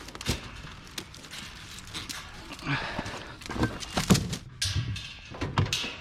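Irregular knocks and clunks of a discarded laundry appliance being handled, the loudest a little after four seconds in.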